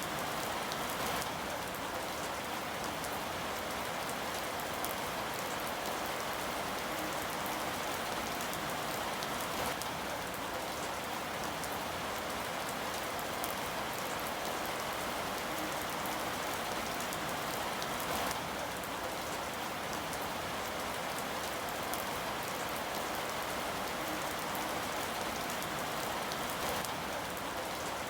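Steady rain falling: an even, unbroken hiss of drops, with a few slightly louder spatters standing out now and then.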